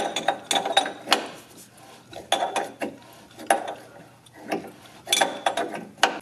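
Metal parts clicking and rattling in several short bursts as a Peterson dry-sump oil filter housing is unscrewed and taken apart by hand.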